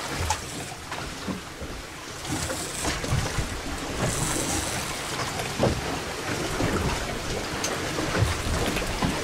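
Wind rumbling on the microphone over sea water sloshing against the boat's hull, with a few short knocks.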